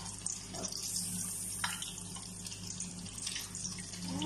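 Oil sizzling steadily in a stainless steel frying pan as moringa-and-egg omelette patties fry, with a few light clicks of a metal spatula against the pan.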